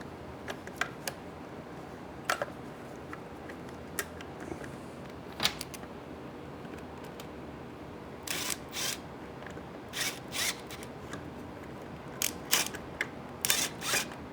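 Hand-tool work on motorcycle cover bolts with a 5mm Allen key: scattered sharp metallic clicks, then from about halfway several short clattering, rasping bursts of tool and parts handling.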